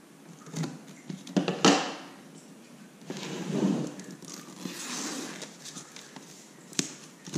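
Cardboard packaging being opened: a short sharp scissor cut through the box's seal about a second and a half in, then from about three seconds in the cardboard outer sleeve sliding off the box with a dry rustling scrape for a few seconds, and a light click near the end.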